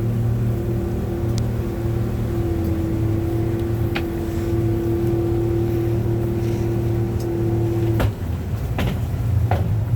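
Boat engine running steadily under way, with a held droning note that drops away about eight seconds in as the engine changes pace. A few sharp knocks sound through it.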